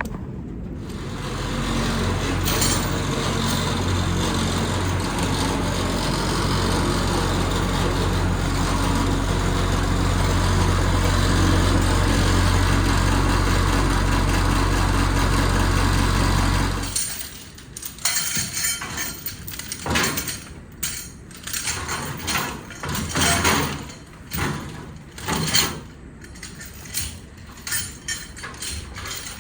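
Case 1845C skid steer's diesel engine running steadily for about sixteen seconds, then cutting off suddenly. After that come irregular metal clanks and knocks.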